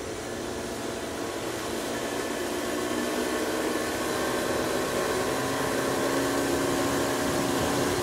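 Yamaha outboard motor running at speed on a small aluminium boat, a steady hum with water rushing along the hull, growing louder over the first few seconds and then holding steady.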